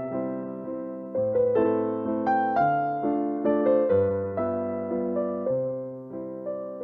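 Background music: a gentle electric piano playing chords and melody notes, each struck note fading away.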